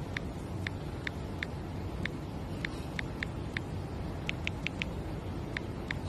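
Steady low background rumble with light, sharp clicks scattered through it, about two or three a second and unevenly spaced.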